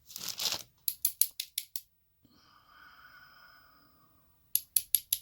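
Quick runs of small metal clicks, about six in a row about a second in and again near the end, from the parts of a pin-tumbler challenge lock being handled as its pins and springs are taken out.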